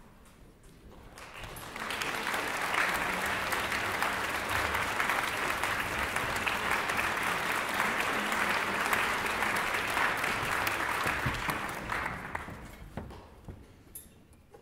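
Concert audience applauding: the clapping swells in about a second and a half in, holds steady, and dies away about twelve to thirteen seconds in.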